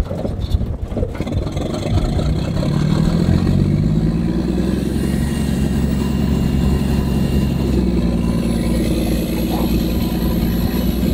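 Caterpillar D8 bulldozer's diesel engine, with a few clanks in the first second, then revving up about two seconds in and running steadily at the higher speed as the dozer's drive is worked. A thin high whine comes in over the engine near the end.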